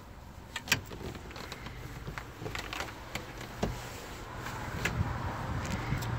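Scattered clicks, knocks and rustles of someone moving about with the camera inside a small motorhome, over a low steady hum that grows a little louder near the end.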